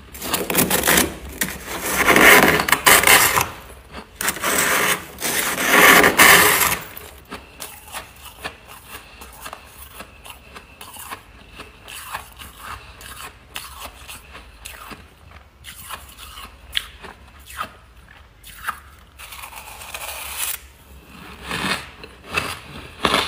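Spoon scraping hard, powdery frost from the inside of a freezer: two long, loud scrapes in the first seven seconds. After them come many short crunchy crackles as the frost is chewed, and another brief scrape near the end.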